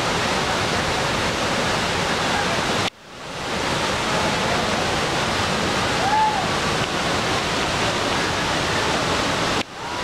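Large waterfall cascading over rock ledges, a steady, dense rush of falling water. The sound cuts out abruptly about three seconds in and swells back over a second, and dips again near the end.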